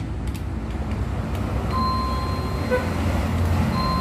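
Steady low rumble of motor traffic, with a thin high tone coming in twice, first a little before the middle for about a second and again near the end.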